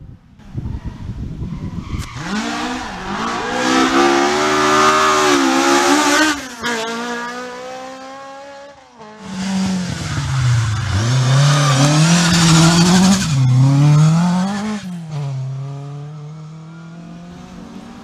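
Ford Escort rally cars passing at speed, two passes one after the other. The engine is revved hard, its note falling and rising repeatedly with gear changes and throttle, and it fades after each pass.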